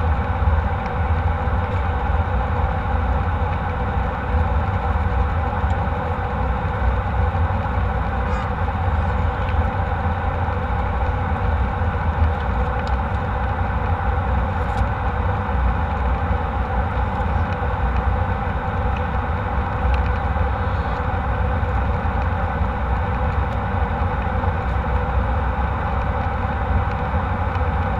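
Steady cabin noise of a jet airliner: the engines' drone and the rush of air, with a deep rumble underneath, unchanging throughout.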